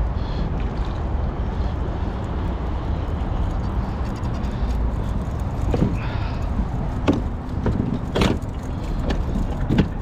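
A steady low rumble. From about six seconds in come several sharp knocks and clatters as a hooked tailor is lifted into a fishing kayak and hits the deck and gear.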